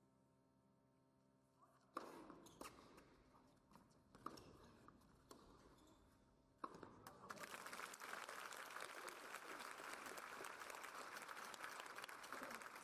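Tennis ball struck by rackets a few times in a rally, ending with an overhead at the net about six and a half seconds in, then steady crowd applause for the won point.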